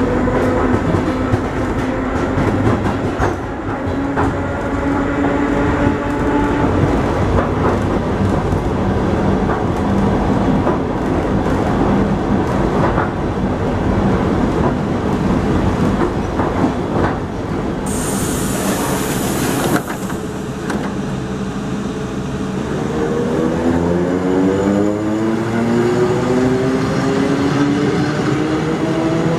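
ER2 electric multiple unit running: the whine of its traction motors and gears over a steady wheel rumble, with frequent clicks of wheels over rail joints. A brief loud hiss comes about 18 seconds in, and from about 23 seconds the motor whine rises steadily in pitch as the train accelerates.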